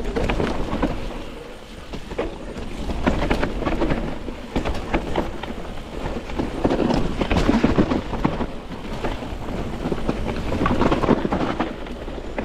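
Mountain bike riding down a rough dirt and rock trail: wind rushing over the camera microphone, with tyres rolling over dirt and stones and the bike knocking and rattling over bumps. The loudness rises and falls with the terrain.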